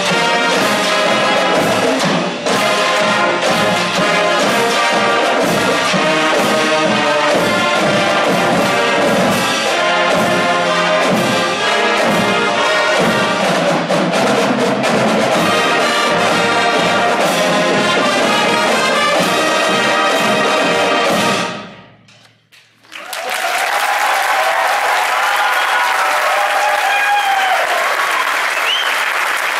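High school band with brass and a marching drumline of snare and bass drums playing a parade tune loudly. The music stops sharply about 21 seconds in, and after a second of quiet the audience applauds.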